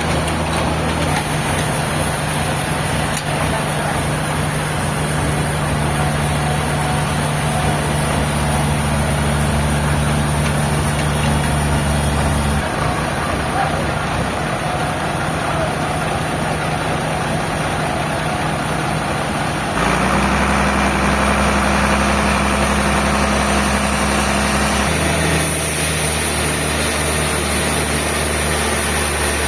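Sawmill machinery running with a steady, loud, engine-like hum, its tone shifting abruptly several times.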